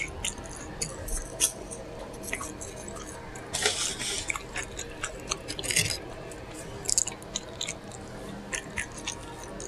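Close-miked mouth sounds of someone chewing a burger: wet, irregular smacking and clicking, with a longer, louder patch about three and a half seconds in.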